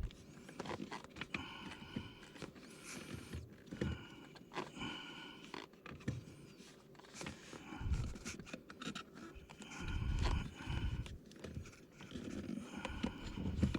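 Rubber brake-pedal cover squeaking and creaking as its edges are stretched and pulled over the metal pedal plate, in several drawn-out squeaks, with scraping, handling noise and a few dull knocks against the pedal.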